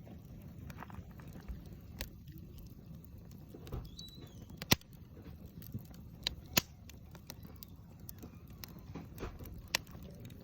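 Wood fire burning with a low steady rush and scattered sharp crackling pops, the loudest a little before halfway.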